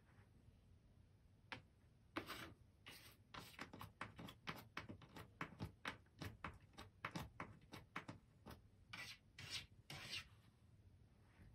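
A cat scratching and digging in a plastic litter box: a run of short, quick scrapes of cat litter, a few each second, that starts about two seconds in and stops near the end.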